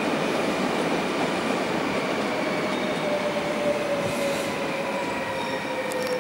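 NS VIRM double-deck electric train moving past along a platform track: a steady rolling rumble and hiss with a faint whine that rises slightly, then slides down near the end.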